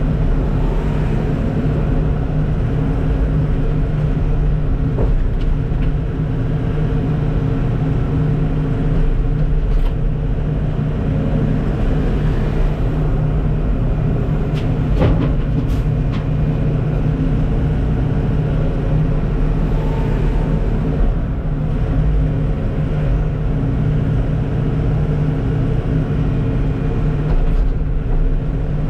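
Heavy diesel engine running steadily with a continuous low rumble, with a couple of faint clicks about halfway through.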